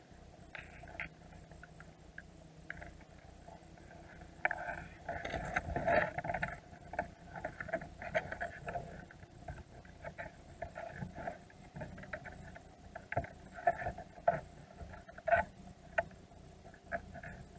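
Irregular clicking, tapping and scraping of Dungeness crab shells and claws against the baited container and the camera housing, heard underwater. The clicks come thick for a few seconds about five seconds in, then thin to scattered sharp clicks near the end.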